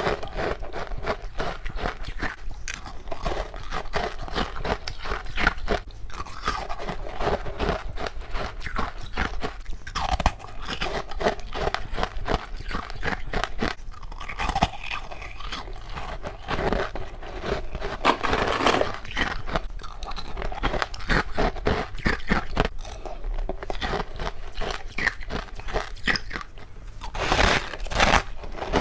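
Humidifier frost and passion fruit being bitten and chewed in quick succession: a dense run of crunches, with a louder cluster of crunches near the end.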